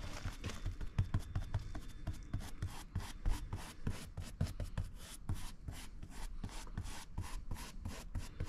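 A short-trimmed cheap bristle paintbrush dabbing thick vinyl paint through a stencil onto an inflatable dinghy's tube: quick, irregular soft taps, several a second.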